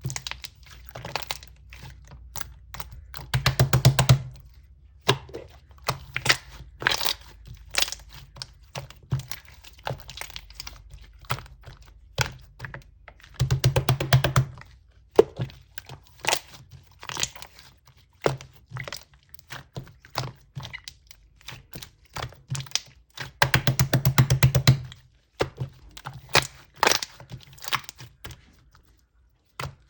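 Clear slime being played with by hand: a stream of sticky clicks and small pops as trapped air bubbles burst. Three times, roughly ten seconds apart, there is a dense run of rapid popping.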